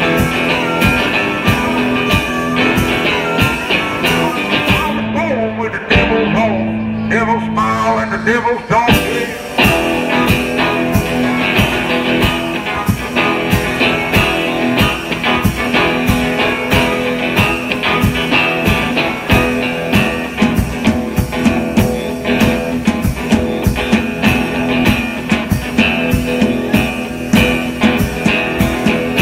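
Live blues-rock from a harmonica and drum kit: harmonica wailing over a steady drum beat. About five seconds in the drums drop out, leaving the harmonica alone for a few seconds, then the beat comes back in.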